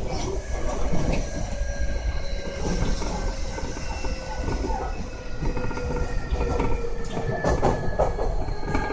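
Keio 1000 series electric train running: its VVVF inverter and traction motors whine in several tones that fall slowly in pitch as the train slows, over wheel and rail noise.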